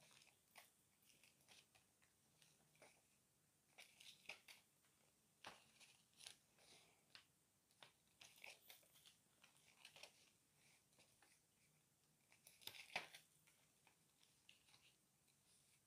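Faint handling noises: small plastic bags of diamond painting drills crinkling and rustling, with scattered light clicks, a louder flurry of crinkling about thirteen seconds in.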